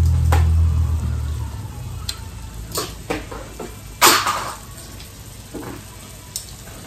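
A low hum fades out in the first second and a half. Then come scattered light clinks and taps of metal cutlery at the table, about half a dozen, the sharpest about four seconds in.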